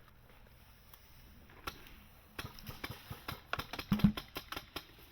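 Airsoft guns firing: a fast, irregular run of sharp clicks starts about two and a half seconds in, with one louder double knock near four seconds.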